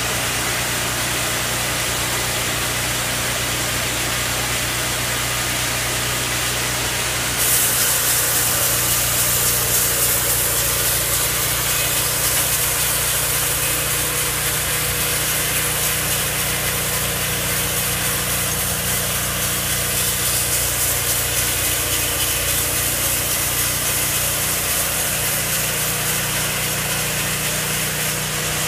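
Engine of a portable sawmill running steadily; about seven seconds in, a loud high hiss comes in as the blade starts cutting through a log and carries on to the end.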